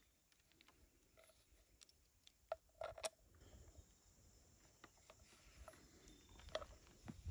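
Near silence, with a few faint clicks and taps about two and a half to three seconds in, from a rubber radiator hose being handled against the metal radiator.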